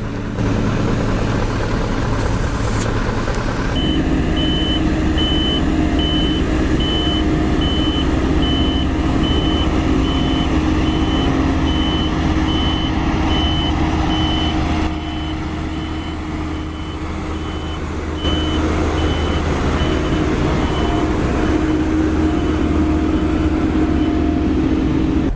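Heavy construction machine's diesel engine running with a steady, repeating reversing-alarm beep that starts a few seconds in. The engine drops in level for a few seconds in the middle and then comes back up.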